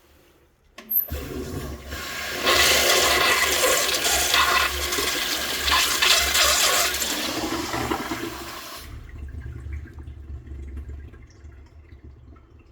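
Daelim Yoeop CC-102 toilet flushing. A click about a second in starts the flush, then a loud rush of water stops sharply around nine seconds in, and quieter running water fades away toward the end.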